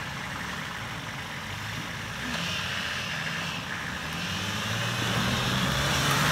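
Nissan Patrol SUV's engine pulling at low revs through mud, rising slowly in pitch and growing louder over the last couple of seconds as the vehicle climbs out of a muddy stream.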